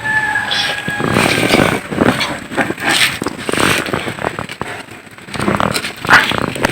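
Irregular metallic knocks, clinks and scraping of tools and parts being worked during the teardown of a Suzuki ST20 engine, with a brief squeak in the first second.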